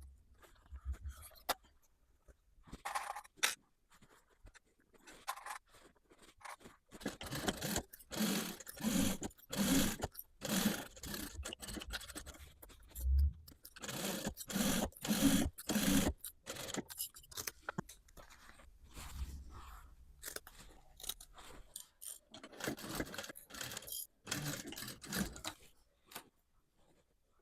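Denim being worked by hand: a run of crunching, scraping strokes of stiff fabric, densest in the middle with quieter pauses between spells.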